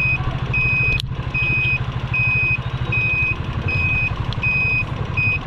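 Motorcycle engine running with a noisy exhaust, a steady low pulsing, while a high electronic beep repeats a little faster than once a second. A single sharp click about a second in.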